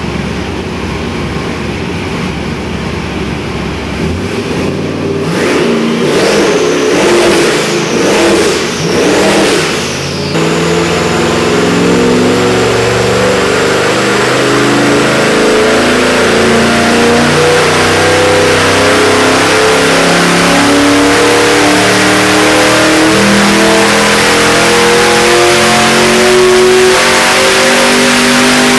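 Nelson Racing Engines twin-turbo 427 V8 on an engine dyno. It idles at first and its level swings up and down a few times between about five and ten seconds in. From about ten seconds on it runs loud and steady under load, its revs climbing to about 5,800 rpm by the end.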